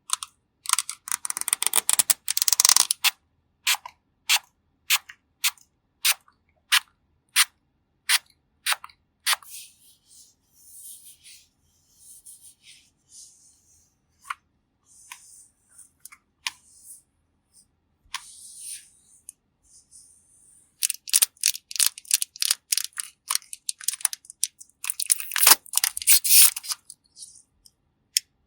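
Close-miked clicks and taps of makeup containers and tools being handled: quick flurries at the start and again from about 21 s, single clicks about once a second in between, and soft scratchy rubbing in the middle stretch.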